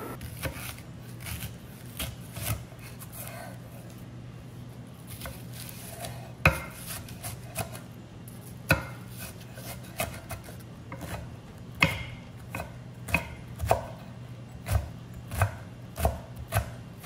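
Chef's knife cutting the white of a green onion on an end-grain wooden board, the blade knocking on the wood. The knocks are scattered at first, then settle into steady chopping strikes, a little under two a second, as the strips are minced near the end.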